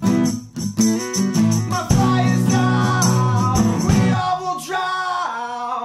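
Live band music: guitars and percussion under a male lead singer. About four seconds in the band drops back and the singer holds a long, wavering note.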